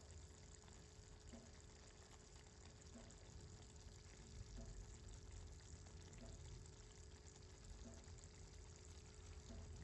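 Faint, steady sizzling of small fish simmering down in oil with turmeric and chilies in a wok, under a low steady hum.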